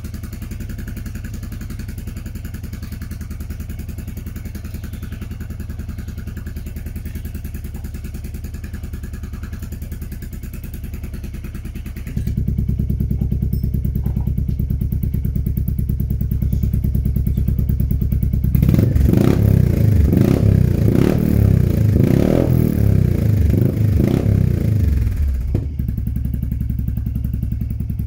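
Royal Enfield Meteor 350's single-cylinder engine, fitted with a Kent camshaft, idling through a Red Rooster exhaust. About twelve seconds in, the exhaust baffle comes out and the idle steps up suddenly, louder and heavier in the bass. From about eighteen seconds a run of throttle blips revs the engine up and down for some seven seconds, and then it settles back to a steady, louder idle with the baffle out.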